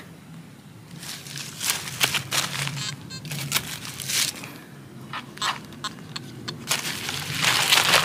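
Digging in loose soil and dry leaves with a hand pick and bare hands: a run of crunching, scratchy scrapes, with the loudest, longest scrape near the end.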